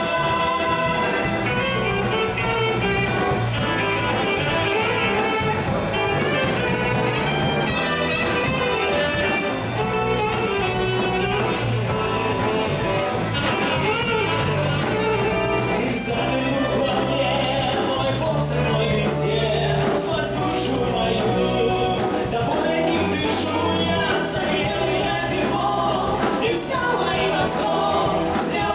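A band plays a rock-style worship song, with singing over steady bass and drums and cymbal strokes in the second half.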